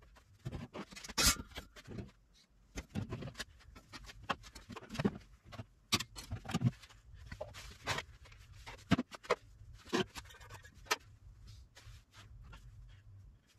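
Parts of a metal electric smoker being handled: irregular clicks, knocks and short scrapes, the sharpest knock about a second in.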